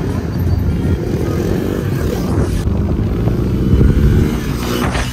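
Motorcycle engines running on the move, with the revs rising briefly about two seconds in and again near the end.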